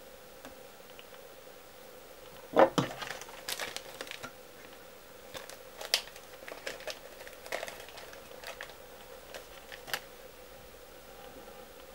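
Fly-tying materials and their packaging being handled by hand: a sharp crinkle about two and a half seconds in, then scattered crinkles, ticks and rustles, over a faint steady hum.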